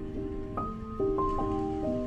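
Background music: a gentle, slow melody of held notes changing about every half second.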